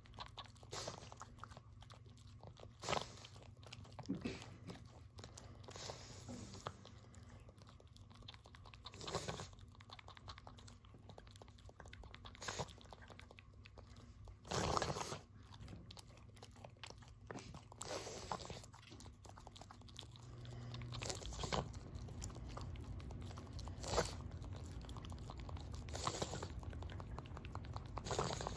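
Shih Tzu nibbling and chewing at the fur of its own leg to relieve an itch: irregular soft crunching bites, with a few louder snaps.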